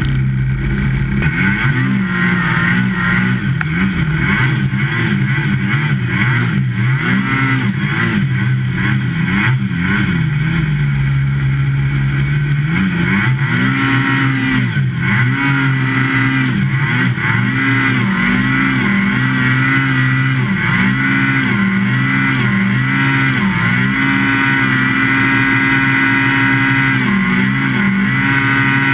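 Snow machine engine running hard and revving continuously, its pitch rising and falling about once a second as the throttle works through deep powder snow.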